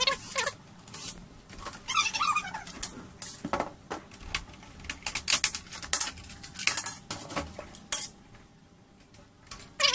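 Irregular clicks, clinks and scrapes of hard plastic and metal parts being handled and pried apart while an air conditioner is opened up, with a few short squeaks.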